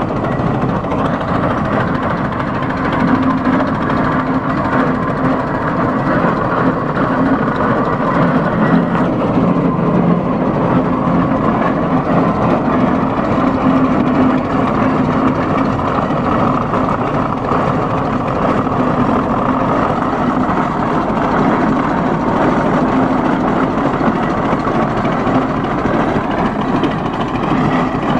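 1914 Avery 25-50 tractor's engine running steadily.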